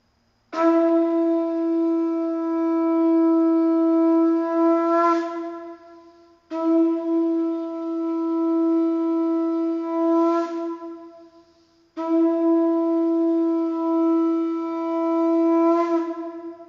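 Conch shell (shankha) blown three times, each blast a long steady horn-like tone of about five seconds that swells and wavers just before it stops, the signal that opens the Mangala aarti.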